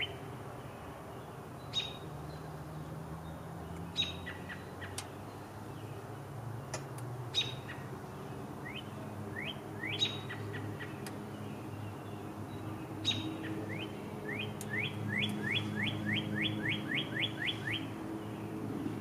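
Songbirds calling: fast runs of rising whistled notes, a short run about halfway through and a longer one of about a dozen notes near the end, with single sharp chips every two to three seconds. A low steady hum sits underneath.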